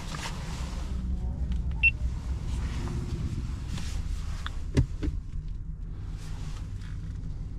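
Inside the cabin of a stationary Opel Corsa-e: one short, high electronic beep about two seconds in, then a sharp click just before five seconds in as the drive selector on the centre console is worked, over a steady low rumble.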